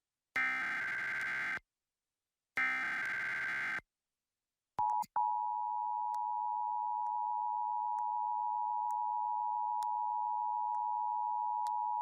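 Emergency Alert System tones: two short SAME data-header bursts, each about a second of harsh digital warbling, then after a brief blip the steady two-tone 853/960 Hz EAS attention signal begins about five seconds in and holds. It is the alert for a tornado warning.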